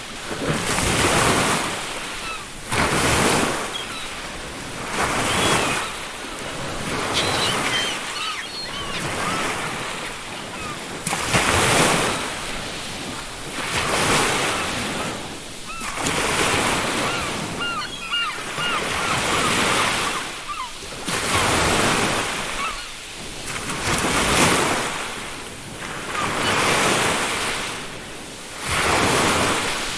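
Ocean waves breaking on a beach, the surf swelling and falling back every two seconds or so. Faint seagull calls come through a few times in the middle.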